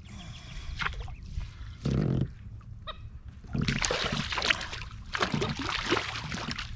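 Hooked traíra thrashing at the water's surface beside a kayak as it is brought in and scooped with a landing net: irregular splashing, heaviest in the second half. A short low call-like sound about two seconds in.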